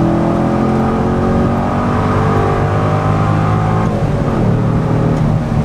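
C6 Corvette V8 running through an SLP Loudmouth II exhaust under throttle, with a loud, steady note. Its pitch drops about four seconds in.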